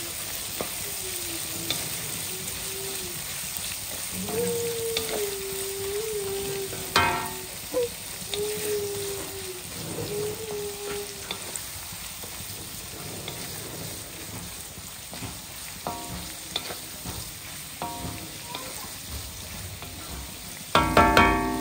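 Chicken, egg, cabbage and bell peppers sizzling in a hot iron wok while a spatula stirs and scrapes them around the pan. A wavering tone comes and goes in the first half. A burst of loud knocks near the end is the loudest sound.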